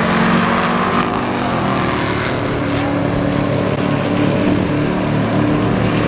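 Race car engine running hard as the car accelerates down a drag strip: a loud, steady engine drone with several pitched tones.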